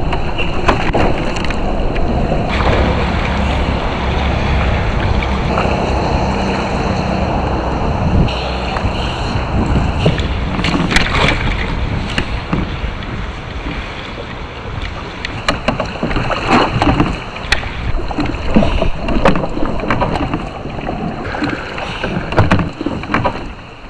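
Water splashing and sloshing as a big red drum thrashes at the surface beside a kayak, over steady wind rumble on the microphone. In the second half there are many sharp, irregular splashes and knocks as the fish is hauled aboard.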